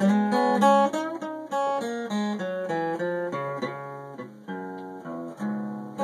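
Acoustic guitar played alone: a passage of picked notes and chords, a new note every quarter to half second, each ringing and fading.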